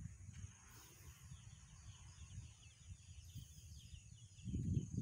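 Low rumbling noise on the microphone of a phone being carried along a path, growing louder near the end, with a bird chirping a quick run of short high notes in the middle.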